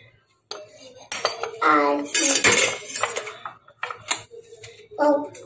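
Metal spoon clinking and scraping in a glass dessert bowl, with a paper ice-cream carton rustling as it is peeled off the block, loudest from about one to three seconds in.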